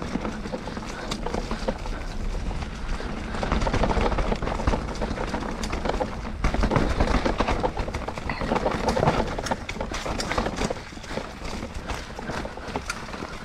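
Norco Sight A2 full-suspension mountain bike ridden fast over a rough dirt trail: the tyres roll and rumble, with rapid irregular knocks and rattles as the bike goes over roots and rocks. It gets louder in two stretches in the middle.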